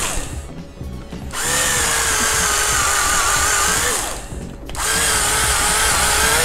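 Small handheld electric screwdriver running in spells with short pauses, turning out a screw that holds the instrument cluster's circuit board. It gives a steady motor whine whose pitch climbs a little just before each stop.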